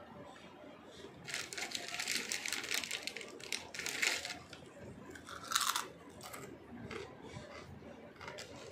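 Chips being crunched and chewed close to the microphone: dense crackling for about three seconds, a loud sharp crunch about five and a half seconds in, then fainter chewing.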